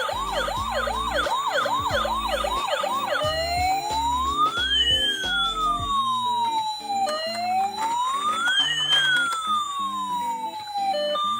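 Electronic siren: a fast yelp sweeping up and down about three times a second, then two slow rising-and-falling wails. Background music with a steady beat plays under it.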